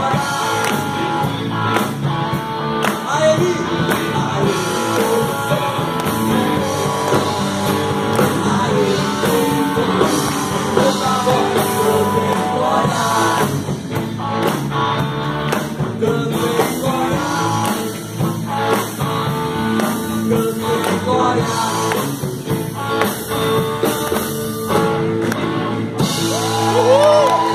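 Live rock band playing, with electric guitars, bass and a drum kit, and a man singing lead into a microphone.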